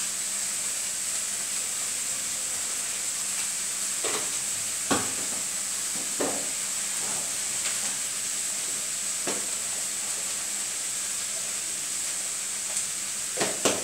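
Cauliflower pieces sizzling in oil in a frying pan, a steady hiss, with a few short scrapes and knocks of a spatula stirring them against the pan.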